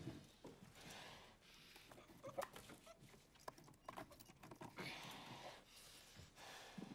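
Faint, heavy breathing of a man through his nose, his mouth clamped on a flashlight, in slow drawn-out breaths. Small clicks and scrapes of careful handwork come between the breaths.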